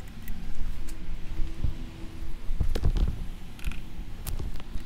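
Scattered creaks and clicks of hand work with a rubber-bulb turkey baster at the power steering pump reservoir while drawing out the old fluid, busiest about three seconds in.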